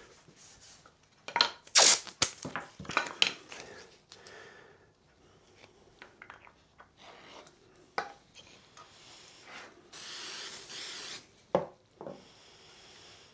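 Masking tape being pulled, pressed and rubbed down on a wooden block, with sharp clicks and rustles in the first few seconds. About ten seconds in, an aerosol can sprays in one hiss of just over a second, followed by a fainter hiss near the end.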